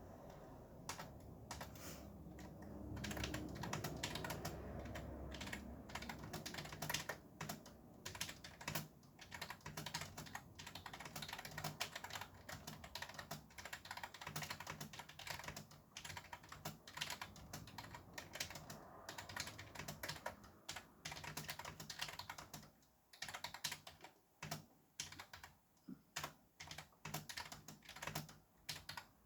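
Fast touch-typing on a computer keyboard: rapid, irregular keystrokes in runs, breaking into shorter bursts with brief pauses near the end. Traffic noise rumbles underneath, strongest in the first few seconds.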